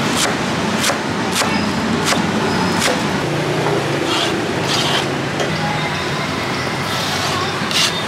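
Large knife chopping green onions on a cutting board, about five sharp chops roughly two-thirds of a second apart, then chopped onions scraped off the board into a stainless steel pan, over steady street traffic noise.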